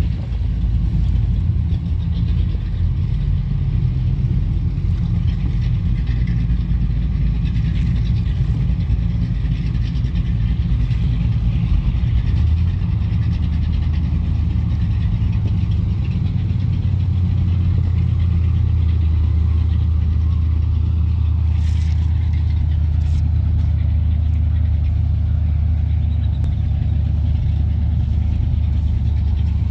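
Engine idling steadily, a low hum that settles into a deeper, steadier drone about twelve seconds in.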